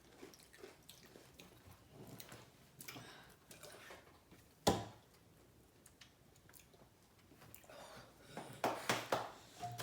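Quiet room with faint scattered clicks, one sharp click about halfway through and a quick run of louder clicks and knocks near the end.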